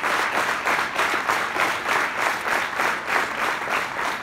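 Large conference audience applauding loudly, the clapping pulsing in an even rhythm of about three claps a second.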